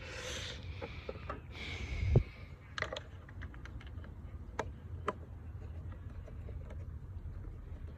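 Light, irregular clicks and scrapes of a small screw being threaded by hand into a plastic air box housing, with handling rustle in the first couple of seconds.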